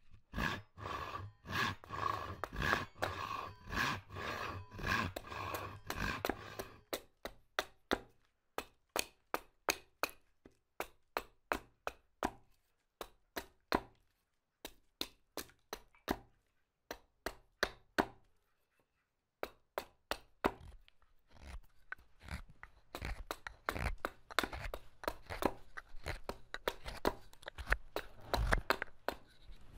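Hand carving tool cutting wood in repeated short strokes: about two a second at first, then sparser single cuts, then quicker scraping strokes in the last third.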